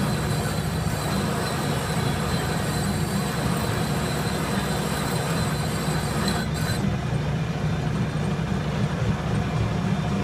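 Metal lathe running under power, a large pipe spinning in its three-jaw chuck while the cutting tool takes a cut on the pipe end to bevel it. The sound is a steady mechanical drone with a dense low hum.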